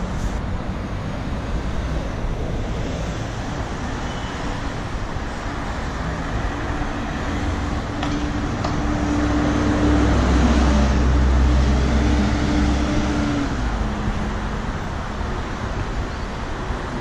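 City street traffic: steady road noise from cars and buses going by. Midway, one vehicle passes close, louder for a few seconds with a low rumble and a steady engine hum that drops in pitch as it moves off.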